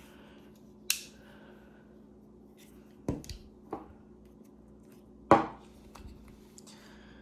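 Stainless-steel tools of a Leatherman Surge multitool being opened and snapped shut on their freshly lubricated hinges: about half a dozen sharp metallic clicks, the loudest about five seconds in.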